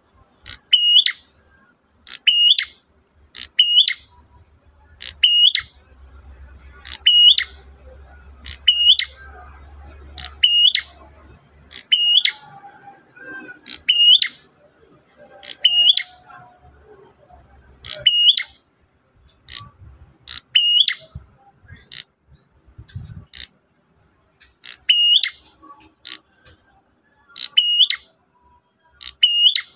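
Prenjak merah repeating one sharp, high call about every second and a half, each note dropping quickly in pitch.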